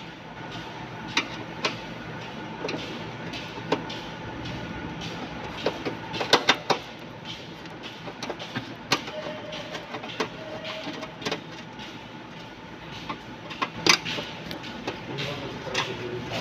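Scattered sharp clicks and knocks, with a cluster of louder ones about six seconds in and another loud knock near the end, over steady background noise.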